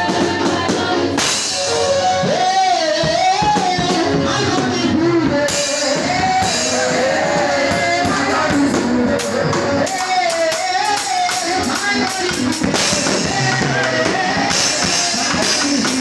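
A live church choir band playing: singing voices over drum kit and guitar, with a steady beat.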